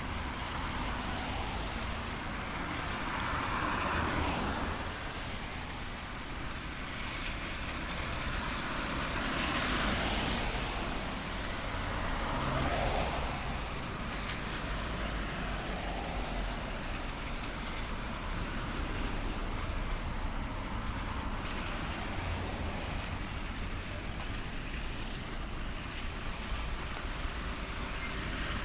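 Street traffic in the rain: a few vehicles pass close by on a wet road, each a swelling hiss, over a steady wash of rain and distant traffic.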